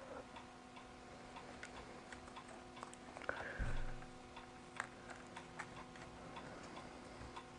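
Faint, scattered small clicks and ticks of camera-rig parts and cables being handled, over a steady faint hum, with a slightly louder bit of handling a little before halfway.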